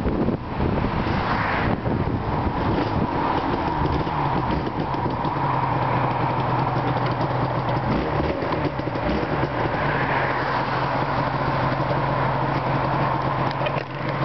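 Yamaha RD250LC two-stroke twin running through large-can Allspeed expansion chambers while riding, under a steady rush of wind and road noise; the engine note holds steady through the second half.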